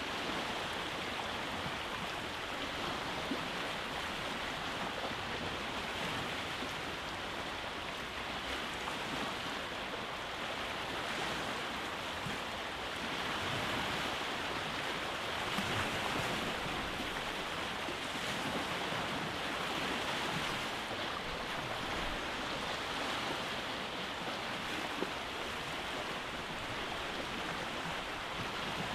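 Sea waves washing onto a rocky shore: a continuous rushing surf that swells and eases, loudest around the middle.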